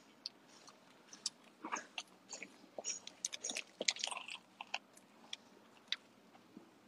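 A person biting into a bread sandwich and chewing it close to the microphone, with many small crisp clicks that are busiest about three to four seconds in.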